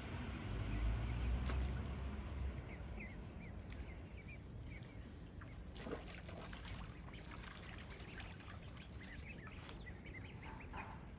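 Eastern spot-billed duck ducklings giving many short, soft peeps over a trickling stream, with a low rumble in the first couple of seconds.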